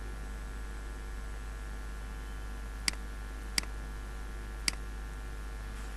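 Three computer mouse clicks, the first about three seconds in, the others following within two seconds, over a steady electrical hum.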